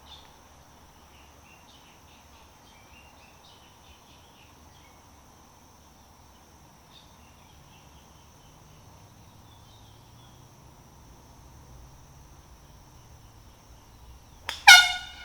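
Faint bird chirps over a low, steady background, then near the end one short, loud blast of a handheld air horn.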